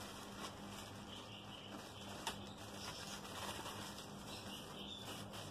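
Plastic courier mailer bag rustling and crinkling as hands open it and pull out small plastic packets, with one sharper crackle a little over two seconds in.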